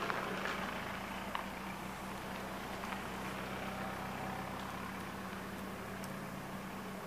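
Wood fire in a steel fire bowl, with a few faint crackles and pops, mostly in the first second or so and once near the end, over a steady outdoor hiss and low hum.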